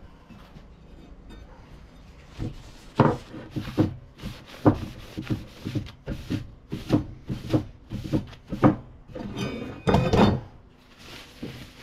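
Paper towel wiped in quick strokes over a steel saw-blade axe head, with irregular knocks and scrapes of the axe against a wooden workbench. Near the end the axe is laid flat on the bench with a longer scrape and a faint metallic ring.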